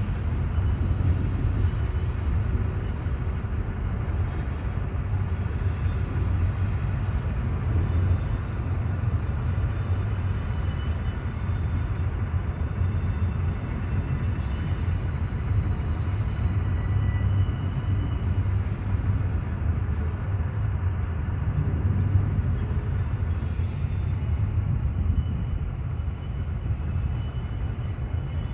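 A train's cars rolling past on the rails with a steady low rumble throughout. Faint high tones come and go about halfway through.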